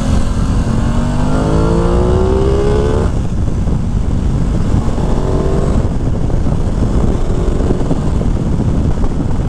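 Aprilia Tuono 660's parallel-twin engine accelerating, its pitch rising for a couple of seconds and then dropping away abruptly about three seconds in. It rises again, more faintly, around five seconds in, over a constant low rush of wind and road noise.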